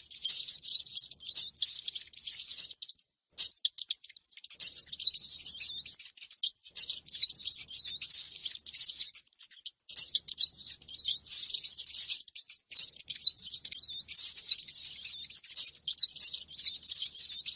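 Rats squeaking and chattering: rapid, high-pitched squeaks that run on almost without pause, breaking off briefly about three seconds in and again about nine seconds in.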